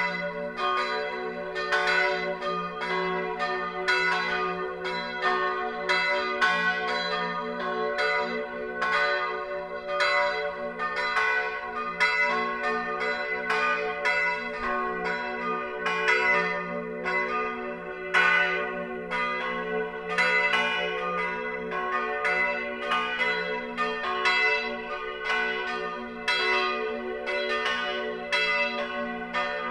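Full peal of three church bells tuned F-sharp, B and D-sharp (fis', h', dis''), cast in 1582, 1604 and 1947, swinging and ringing together. Their strikes overlap at about three a second over a steady hum.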